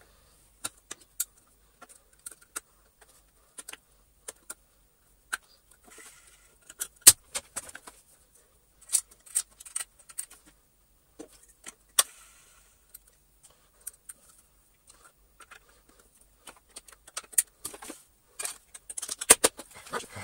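Scattered clicks and light metallic clinks of a steel circlip and washers being worked onto the wheel axle of a Gtech AirRam cordless vacuum sweeper. Two louder clicks come about seven and twelve seconds in, and a quick run of clicks comes near the end.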